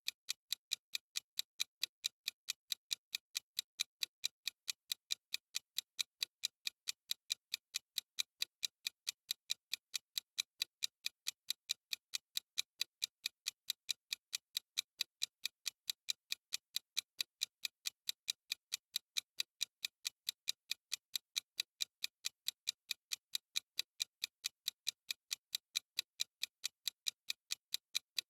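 Countdown timer's clock-tick sound effect: regular, evenly spaced ticks, a few each second, keeping steady time.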